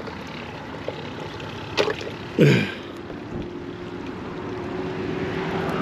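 Hands rummaging in a plastic bait bucket and handling tackle and a shrimp for baiting, with a few light clicks and a short low sound dropping in pitch about two and a half seconds in. Underneath is a steady wash of wind on the microphone, and a faint steady hum joins about three seconds in.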